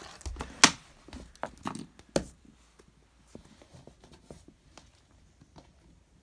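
Fidget toys being handled and set down on a hard surface: sharp knocks, loudest a little over half a second in and again just after two seconds, then faint scattered clicks and taps.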